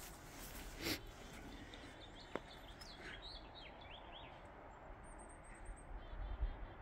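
Small songbirds chirping in short sweeping calls, with a thin, high trill about five seconds in. A soft thump comes about a second in, and a low rumble near the end is the loudest sound.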